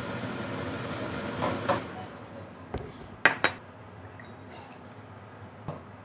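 Clinks and sharp knocks of a soju bottle and shot glass being handled on a tabletop: two loud knocks a moment apart about three seconds in, and a lighter click near the end.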